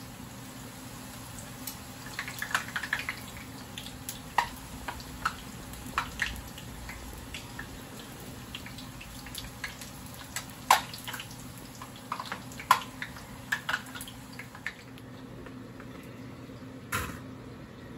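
Tortillas frying in hot oil in a pan: irregular crackles and pops of spitting oil, over a steady low hum.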